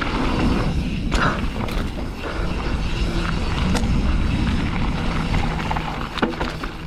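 Mountain bike rolling over a dry, dusty dirt trail: a steady rumble of tyres on the ground, with scattered sharp clicks and rattles from the bike.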